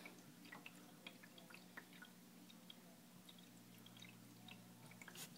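Faint aquarium water sounds: a low steady hum with scattered tiny drips and ticks.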